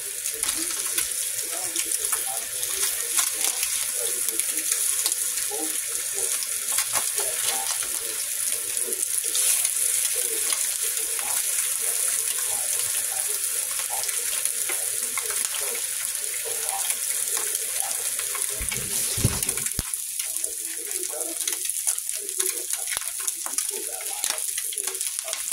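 Fried eggs sizzling in bacon grease in a cast iron skillet: a steady hiss with small crackles and pops. A spatula works the eggs in the pan, and there is a dull low bump about three-quarters of the way through.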